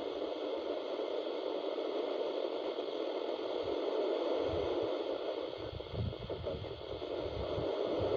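Steady static hiss from a CB radio receiver on an FM channel with no signal coming through, with some low rumbling from about halfway through.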